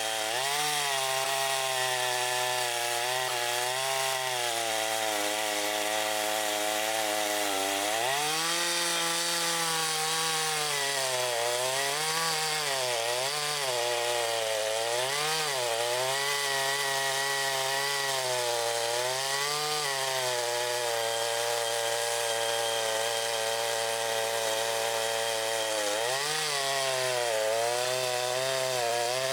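Makita DCS5121 50 cc two-stroke chainsaw running at high revs, its pitch dipping and recovering again and again as the engine is loaded in a cut through wood.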